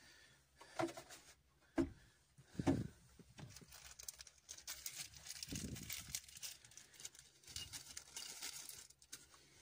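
Handling noise of hard plastic parts: three short clicks about a second apart, then a few seconds of crinkling and rustling with a dull knock in the middle.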